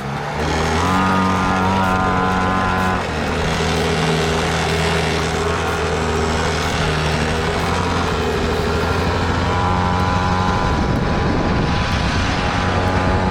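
Pocket bike's small engine catching and running, its revs climbing about a second in, dropping back near three seconds and rising again later.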